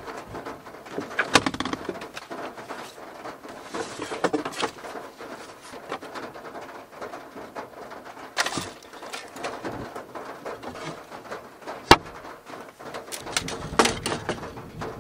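Household objects being handled in a wooden storage box and around a small van interior: rustling and clattering with several sharp knocks, one of the loudest about twelve seconds in.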